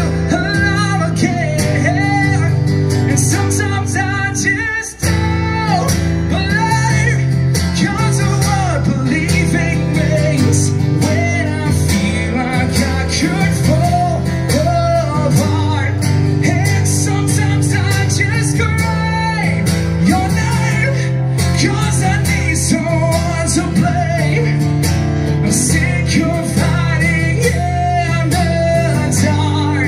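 Solo acoustic guitar strummed with a man singing, heard live through a stage PA system. The sound drops out for an instant about five seconds in.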